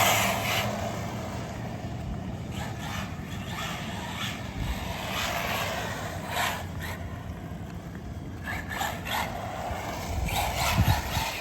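Electric RC buggy, an Arrma Typhon Grom, driving: motor and drivetrain whirring and tires scuffing the ground, with a few brief knocks and bursts of throttle.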